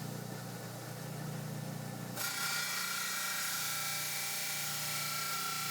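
Lapidary saw with a diamond blade running steadily while cutting gold tiger eye. About two seconds in, a louder hiss with a steady high whine sets in suddenly.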